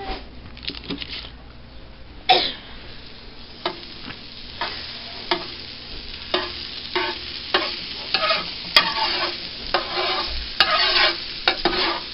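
A metal spatula scraping and spreading a pat of butter across a hot griddle, the butter sizzling as it melts. The scrapes come as separate strokes, more often and louder toward the end.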